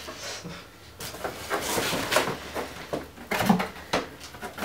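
Cardboard shipping box being opened by hand: tape giving way and the flaps pulled back, with irregular scraping, rustling and sharp cardboard knocks starting about a second in.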